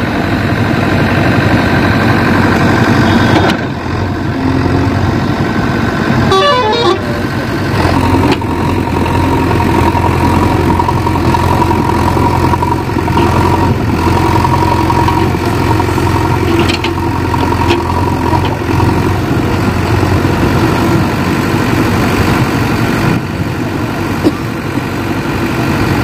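JCB 3DX backhoe loader's diesel engine running hard while the machine is bogged in mud and works its buckets to push itself free. A steady high whine sits over the engine through the middle stretch.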